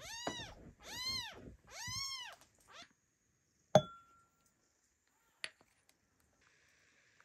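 Kitten meowing three times in quick succession, each call rising and then falling in pitch. A sharp clink with a short ring follows, with a lighter tap a little later, as a spice container meets a drinking glass.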